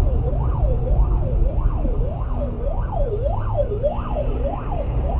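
Emergency vehicle siren wailing in quick rising and falling sweeps, a little under two cycles a second, over the low rumble of a car's engine and road noise.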